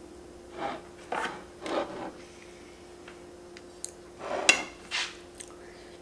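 White plastic fork digging into moist chocolate cake and scraping a disposable plate: about five short scrapes in two clusters, over a faint steady hum.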